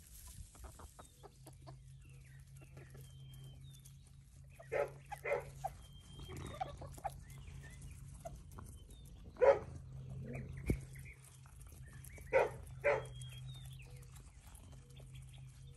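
A dog barking a few short times, mostly in quick pairs, among chickens clucking softly as they forage. A low steady hum runs underneath.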